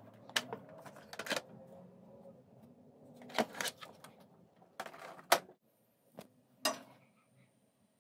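Clicks and knocks of a plastic game-console casing being handled, turned over and set down: about eight sharp taps, the loudest just past five seconds in.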